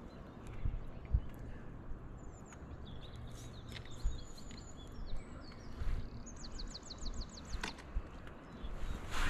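Songbirds singing over a steady low outdoor rumble: scattered high chirps from about two seconds in, then a fast run of about nine repeated notes past the middle. A couple of short knocks come near the end.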